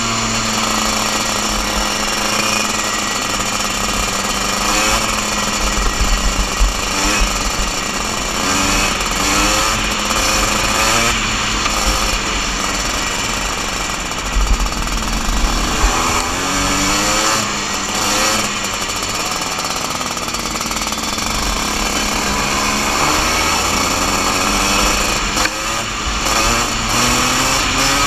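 Junior Max 125cc two-stroke kart engine at racing speed, heard from onboard. Its buzzing note climbs and falls again and again as the kart accelerates out of and slows into corners.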